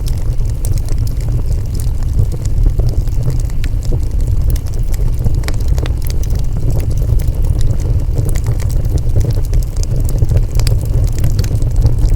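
Wood fire burning with a steady low rumble, peppered with frequent small crackles and pops of the burning wood.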